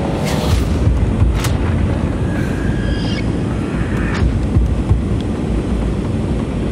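Wind buffeting an action camera's microphone on an open kayak on the water: a loud, steady, fluttering low rumble, broken by a few short clicks.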